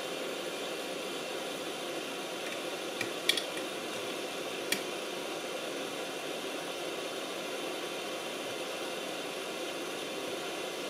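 Hot air rework gun of a YiHua 853D station blowing a steady rush of air onto a circuit board to desolder a small surface-mount inductor, with a few light clicks about three seconds in and again near five seconds.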